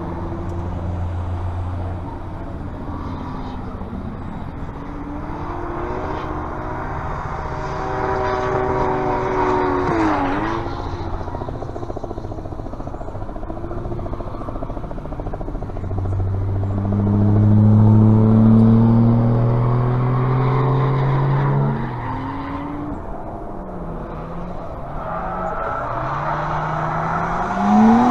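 Car engines revving and accelerating in several rising runs. The pitch dips and climbs again about ten seconds in, and the loudest run climbs steadily in pitch for several seconds before cutting off, with another engine beginning to climb near the end.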